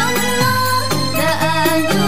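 Music of an Indonesian sholawat song: a melody line bending over a steady bass accompaniment.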